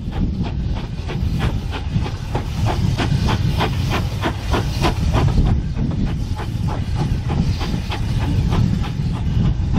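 BR Standard Class 4 2-6-0 steam locomotive working a train, its exhaust chuffing about four times a second over the rumble of the carriages; the chuffs fade after about six seconds, leaving the steady running rumble.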